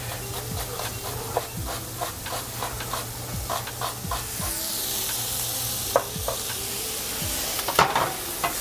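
Chef's knife slicing an onion on a wooden cutting board, a run of short knocks, while a pan of onion, peppers and spices sizzles in oil; the sizzle swells from about halfway, with a few louder knocks near the end.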